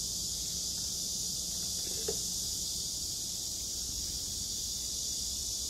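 Steady high-pitched hiss over a faint low hum, with one soft click about two seconds in.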